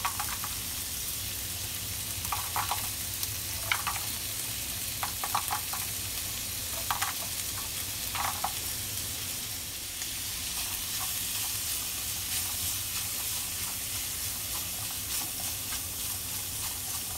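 Minced pork and diced carrot sizzling in a hot nonstick wok, being stirred with wooden chopsticks. The chopsticks click against the pan in short clusters, mostly in the first half.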